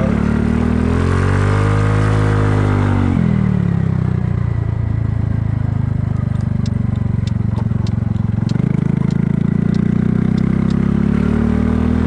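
Kymco People scooter engine running under way: its pitch climbs for about two seconds as it accelerates, drops sharply about three seconds in as the throttle closes, then holds steady and picks up again past the middle. A run of faint light ticks comes in the second half.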